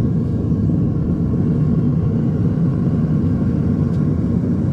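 Gas burner of a metal-melting furnace firing under pressure, a loud, steady, low noise that stays unbroken.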